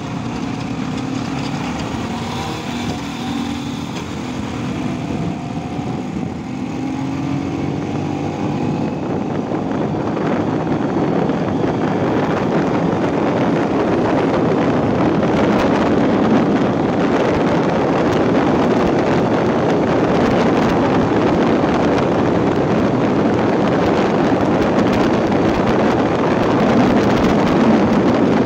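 Vespa PX scooter fitted with a Suzuki Nex automatic four-stroke engine pulling away and accelerating, its engine note rising over the first several seconds. It then rides on at speed as wind rush on the microphone grows louder and covers much of the engine.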